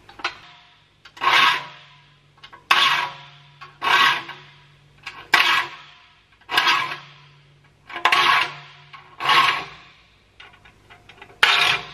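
A hand file rasping across the teeth of a crosscut handsaw held in a vise, sharpening it: eight even push strokes, about one every second and a half. Each stroke sets off a low hum from the vibrating saw plate.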